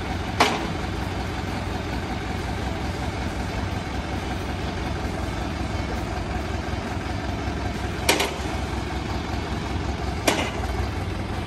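New Holland 5630 tractor's diesel engine idling steadily while its hydraulic jacks fold and unfold the side wings of a 19-tine cultivator. Three sharp metal knocks come as the wings stop: one just after the start and two near the end.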